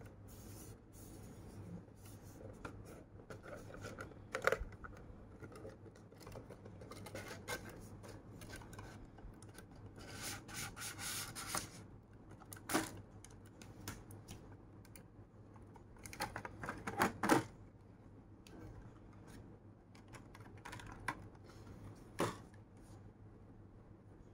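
Hands opening a clear plastic blister pack with a cardboard backing card. Plastic rustles and crinkles throughout, with scattered sharp clicks, a longer crackling stretch near the middle and a cluster of loud clicks about two-thirds through.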